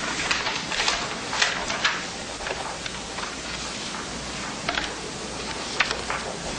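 Pens and pencils scratching on paper as several people write: a steady hiss broken by irregular small taps and clicks.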